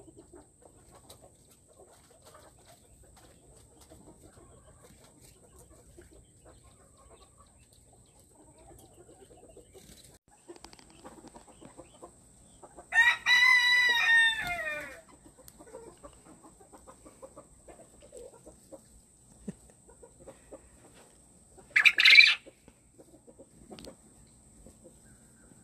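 A male fowl crowing once, about halfway through: a loud call of about two seconds that drops in pitch at its end. A short, sharp, higher call comes near the end.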